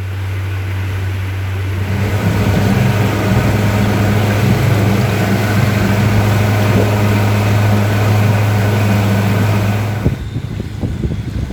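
Boat engine running steadily with a deep hum, growing louder about two seconds in, then dropping away suddenly near the end, leaving a rough wind-like rumble.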